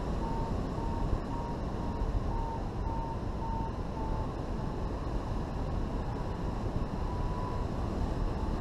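Wind rushing over the microphone of a hang glider in flight. A variometer beeps short high-pitched beeps, about two a second, for the first four seconds, then stops. One longer, fainter tone comes near the end. The beeping is the sign of the glider climbing in lift.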